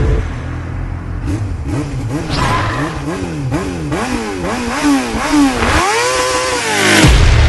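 Motorcycle engine revved in quick repeated blips, its pitch rising and falling about twice a second, then one longer rev that rises and falls and cuts off suddenly near the end.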